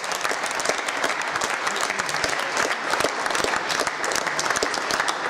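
Audience applauding: dense, steady clapping with no let-up.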